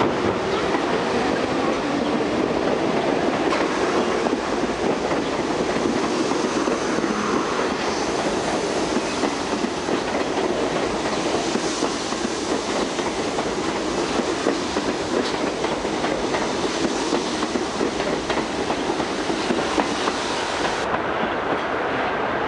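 An R42 subway train pulling out of an elevated station and passing close by, a steady loud rolling rattle of its steel wheels over the rails. The higher part of the sound falls away near the end as the last car pulls clear.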